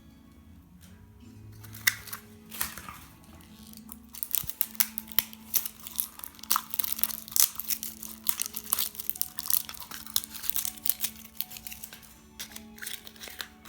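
A squishy toy's wrapper being crinkled and torn open. There are a few crackles about two seconds in, then a dense run of crinkling from about four seconds in until near the end, over soft background music.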